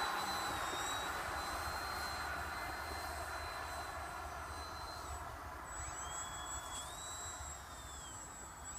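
Small electric RC airplane's motor and propeller whining high overhead over a steady rush of air, slowly getting fainter. From about halfway on, the whine rises and falls in pitch several times.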